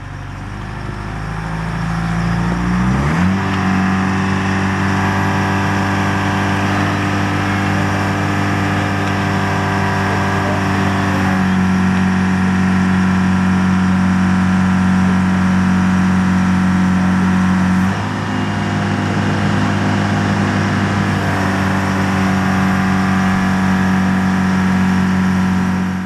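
Mobile crane's diesel engine revving up over the first few seconds, then running steadily at high revs. Its pitch and loudness dip briefly about 18 seconds in.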